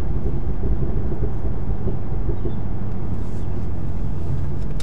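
Inside the cabin of a 2017 Chevrolet SS with its 6.2-litre LS3 V8 on the move: a steady low engine drone mixed with road noise.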